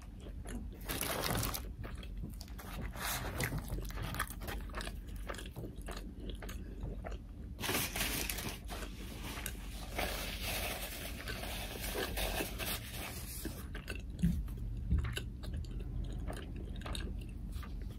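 Close-miked chewing of a mouthful of breakfast burrito (flour tortilla with bacon, eggs, cheese and hash browns): many small wet mouth clicks, with a denser, noisier stretch of chewing in the middle.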